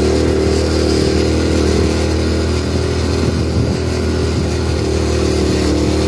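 Honda CD 70 motorcycle's small single-cylinder engine running at a steady pace while riding, with wind noise over the microphone.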